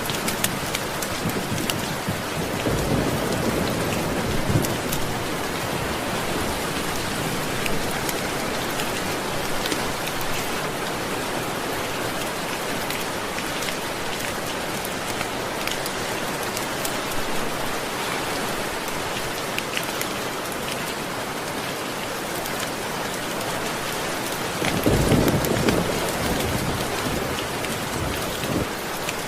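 Steady rain falling, with low thunder rumbling twice: a few seconds in and again, louder, near the end.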